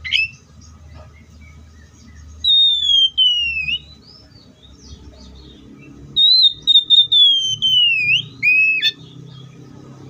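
Oriental magpie-robin singing: a sharp rising note, then two phrases of clear whistled notes that slide down in pitch. The second phrase is longer and ends with a short note and a sharp click.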